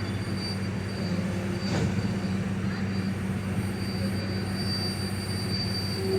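Passenger train in motion, heard from inside a coach: a steady low hum with a thin high whine over it, and a faint click about two seconds in.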